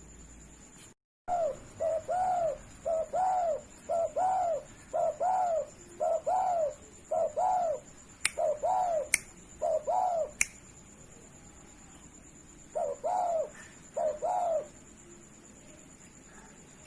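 Spotted dove (derkuku) cooing in a long run of short, arched coo notes, often a short note followed by a longer one, then two more coo phrases after a pause near the end. Three sharp clicks sound partway through the cooing.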